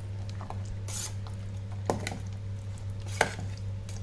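A spoon stirring thick pea-and-paneer gravy in an electric kettle's pot: soft squelching scrapes, with two sharp knocks of the spoon against the pot about two and three seconds in. A steady low hum runs underneath.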